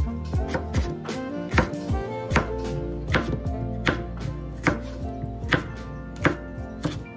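Kitchen knife chopping vegetables on a cutting board: a sharp chop about every 0.8 s with lighter taps in between, over background music.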